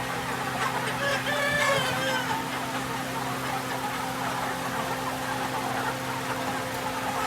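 Flock of Mia chickens clucking, with a rooster crowing once about a second in, over a steady low hum.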